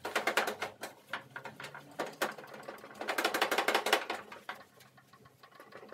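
Soapy cloth rag scrubbed hard, back and forth, on a barbecue's stainless steel edge. There are two spells of fast rubbing strokes, each about a second long, the second about three seconds in, working at grease that is hard to shift.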